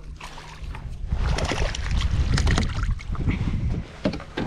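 Water splashing and slapping beside a kayak as a hooked crappie is reeled to the hull and grabbed, with wind buffeting the microphone; a few sharp splashes come near the end as the hand reaches into the water.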